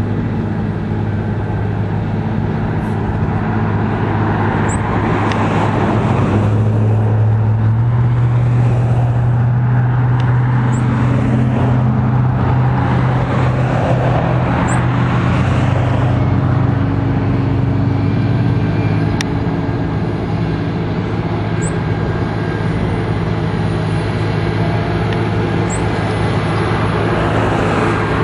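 Cat 140M Series 2 motor grader's diesel engine running steadily while grading dirt, its pitch and loudness rising for a stretch about six seconds in and settling back about ten seconds later.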